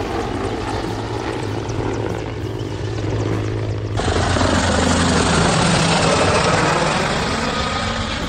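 Helicopter rotor blades and turbine engines running as a helicopter flies overhead. About four seconds in the sound switches abruptly to a louder, closer helicopter passing low.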